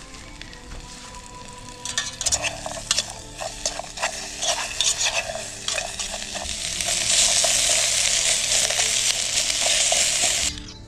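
Onions frying in olive-oil-rich pesto in a pan: sizzling with clicks of stirring from about two seconds in, then a steady, louder sizzle that cuts off sharply near the end.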